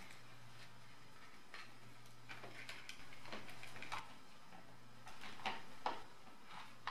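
Scattered light clicks and taps of a black plastic project enclosure being closed and handled, with a couple of sharper knocks about five to six seconds in.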